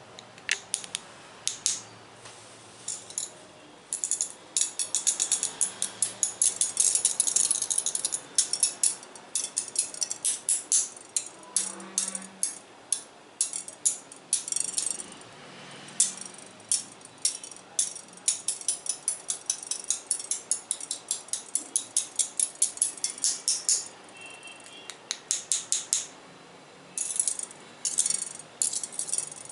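Close-up ASMR tapping and rattling on small hard objects: quick runs of sharp, bright clicks, several a second, broken by short pauses.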